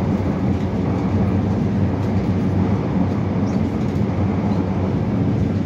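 Steady low rumble of a vehicle travelling at speed, heard from inside as it moves along.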